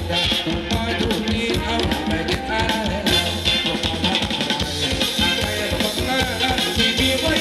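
Upbeat Thai ramwong dance music from a live band, with a steady drum beat.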